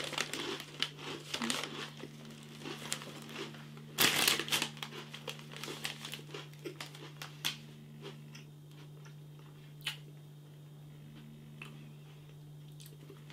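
Crinkling of a plastic snack packet of cheddar sticks being handled, in irregular crackles, with the loudest rustle about four seconds in. A steady low electrical hum runs underneath.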